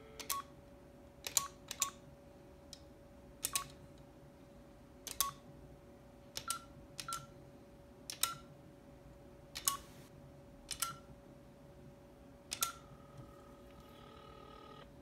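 Stainless steel payphone keypad being dialled: about eleven metal button clicks at an uneven pace, each with a short electronic beep. Near the end a steady tone starts as the number is completed.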